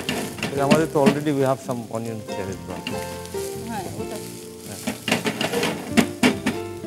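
Chopped onions sizzling as they fry in a pan of vegetable oil and a little ghee, with sharp clicks here and there as a spoon stirs against the pan.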